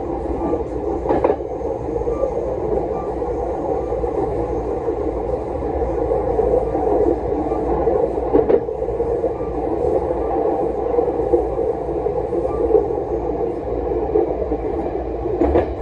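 Chu-Kuang express passenger coach running along the track, a steady rumble of wheels on rails with three brief sharp knocks.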